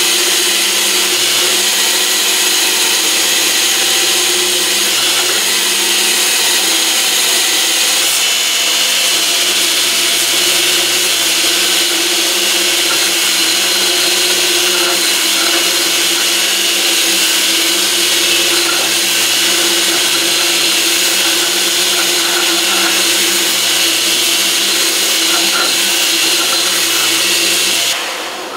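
Homemade belt grinder running steadily, a constant hiss over a steady motor hum; it stops just before the end.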